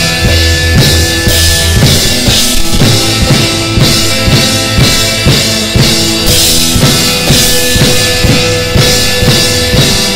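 Background music with a steady drum-kit beat of kick and snare over held tones.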